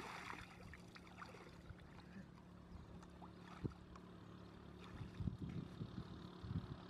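Water splashing out of a bamboo fish trap for a moment, then soft rustling and sloshing footsteps through wet grass and shallow water. The steps grow louder about five seconds in.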